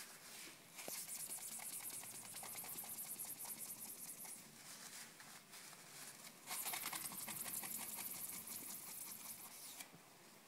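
A cloth rubbing fast across the printing plate of a laboratory gravure printing machine as the plate is wiped clean. It comes in two spells of quick scrubbing strokes; the second is louder and stops suddenly near the end.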